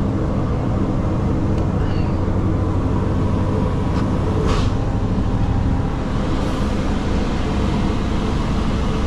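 Scania logging truck's diesel engine running steadily under way at low speed, with road noise and a short hiss about halfway through.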